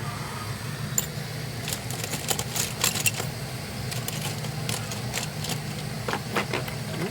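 Scattered light metallic clicks and taps of small repair tools working on a phone's circuit board, bunched in the first few seconds and again near the end, over a steady low hum.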